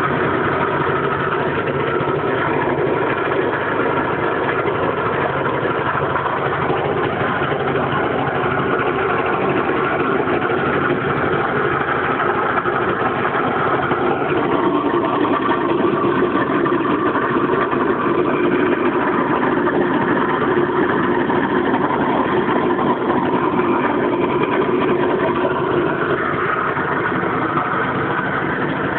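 Piaggio engine running steadily, with an unidentified mechanical noise that the owner suspects comes from the transmission.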